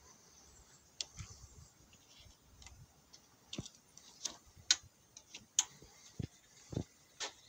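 Irregular light clicks and taps as a ribbon cable and sleeved wiring are lifted and moved by hand inside an opened hybrid inverter.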